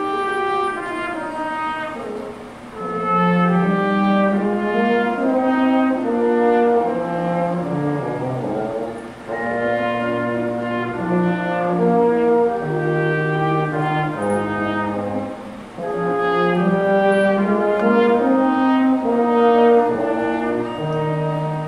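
Instrumental music: several pitched parts playing held notes that move in steps, with short pauses between phrases.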